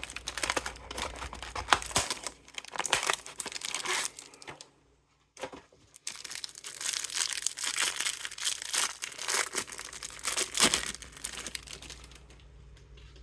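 Plastic wrapping of a trading-card hanger box crinkling and tearing as it is opened. It comes in two spells with a brief near-silent pause about five seconds in.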